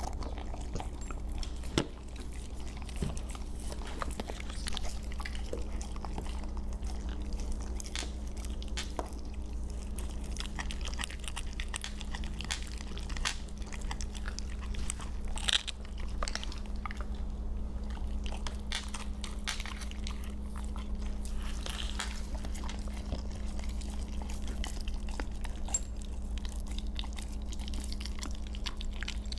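Siberian huskies chewing raw chicken drumsticks: irregular crunching and clicking of bone and meat between their teeth, over a steady low hum.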